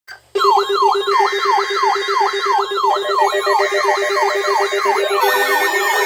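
Electronic siren-style alert tones starting abruptly: a quick falling sweep repeating about three times a second over a steady pulsing lower tone, with more overlapping sweeps joining about five seconds in. This is the alarm that introduces an Emergency Alert System severe thunderstorm warning.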